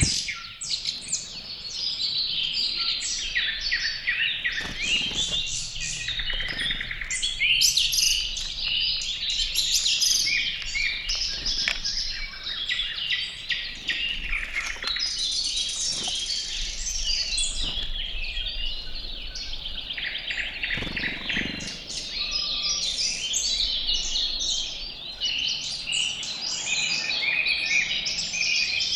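Several wild songbirds singing and chirping at once, a busy, continuous outdoor chorus of overlapping trills and short calls.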